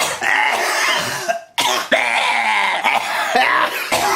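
A man coughing hard and repeatedly in several loud bouts, his voice sounding through the coughs, with a brief break about a second and a half in.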